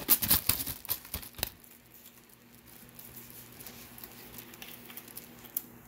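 Plastic oven bag crinkling and rustling as a stick of butter is dropped in among the seafood, lasting about a second and a half, then quiet with a faint low hum.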